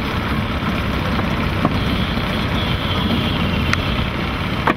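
A Johnson outboard motor running steadily on a small boat, with a couple of faint ticks.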